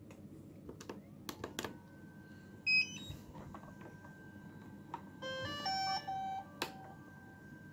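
DJI Phantom 4 Pro+ remote controller powering up: a few button clicks, a short beep about a third of the way in, then a short start-up jingle of several notes a little past the middle.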